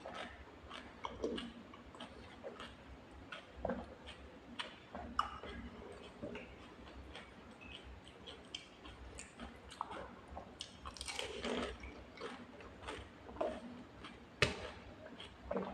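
Chewing and crunching of pani puri: the crisp puri shells crack between the teeth in irregular bites, with the sharpest crunch near the end.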